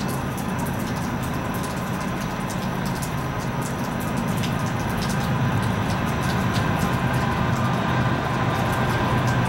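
Diesel freight locomotives approaching, a GE ES44AC leading a GE C44-9W: a low, steady engine rumble and hum that grows gradually louder as the train nears.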